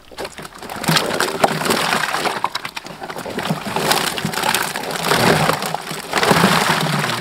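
Fish thrashing in a mesh keep net as it is lifted out of a tub of water: a dense, crackly run of wet slaps and splashing, loudest about a second in and again near the end.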